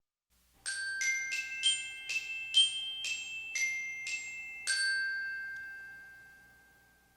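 A short jingle of bright, bell-like struck notes in the style of a glockenspiel: about nine quick notes, then a final note that rings on and slowly fades.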